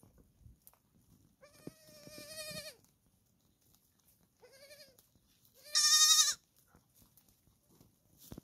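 Young goat kid bleating three times with a wavering pitch: a longer call early, a short quieter one, and the loudest about six seconds in.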